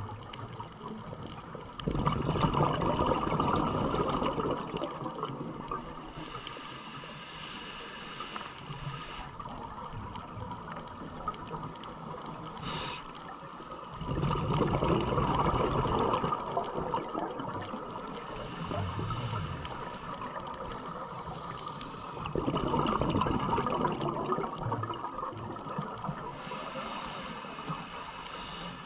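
Scuba diver's exhaled breath bubbling out of the regulator in three bursts of a few seconds each, about two, fourteen and twenty-two seconds in, with a quieter underwater hiss between breaths.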